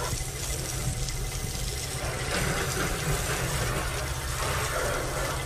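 Water from a garden hose spraying onto a car's windows and door panels, a steady splashing hiss that gets louder about two seconds in, over a steady low rumble.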